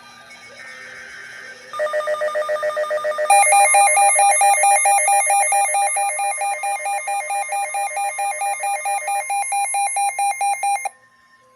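Emergency Alert System tones: first a faint stretch of the digital header bursts, then a loud electronic alert tone that warbles rapidly, about eight pulses a second. It grows louder about three seconds in, runs for about nine seconds and cuts off sharply near the end.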